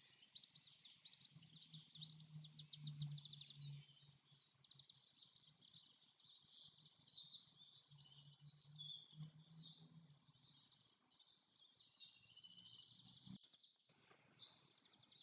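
Faint forest birdsong: several small birds chirping and trilling in quick, overlapping phrases, over a faint low hum.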